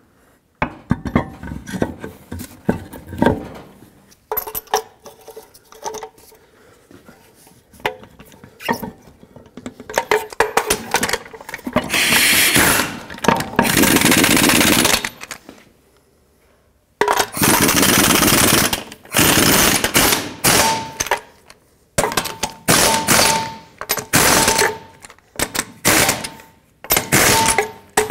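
Power tool tightening the skid plate bolts with a rapid hammering rattle, in a series of bursts a few seconds long with short pauses between; the longest come about halfway through.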